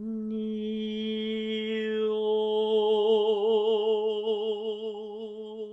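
A single sung note held for about six seconds on the vocal exercise 'ni-o': the bright 'i' opens into a closed 'o' about two seconds in, and a gentle vibrato comes in halfway. It is a demonstration of forward 'mask' resonance, the 'o' meant to sound placed forward rather than in the throat.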